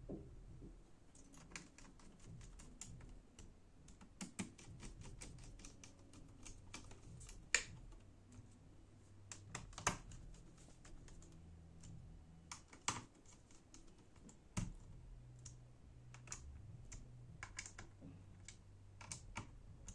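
Irregular small clicks and taps of a screwdriver, screws and parts being handled on a laptop's metal and plastic chassis during reassembly, with a few sharper clicks, over a faint low hum that comes and goes.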